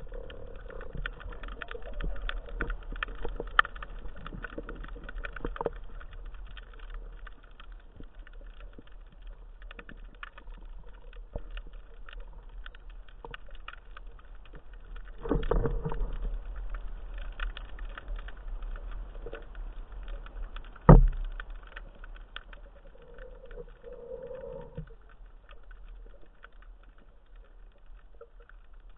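Underwater sound heard through a camera's waterproof housing: a low rumble with a steady crackle of small clicks, a louder noisy surge about halfway through, and one sharp knock a few seconds later.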